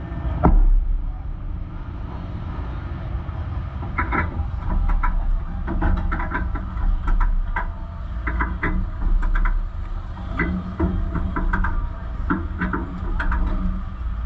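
Dirt Super Late Model race car's V8 heard on board, running with a steady low rumble and no big revving. Frequent sharp rattles and knocks from the car come through over it.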